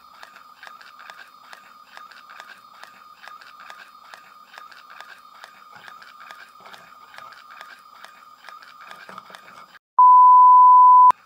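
NEMA 17 stepper motor driving a 3D-printed planetary gearbox: a steady high whine with a fast, even clicking from the turning gears. Near the end it cuts off, and a loud steady 1 kHz test-tone beep plays for about a second.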